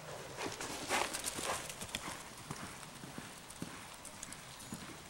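Horse walking on arena sand under a rider: scattered soft hoofbeats, the strongest about a second in.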